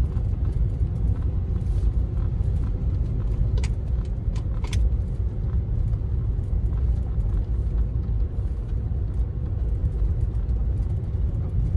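A car driving slowly, a steady low rumble of engine and tyres, with a few sharp ticks about four seconds in.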